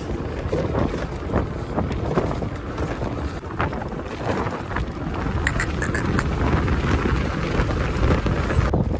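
Wind buffeting the microphone, with road and tyre noise, on a moving scooter.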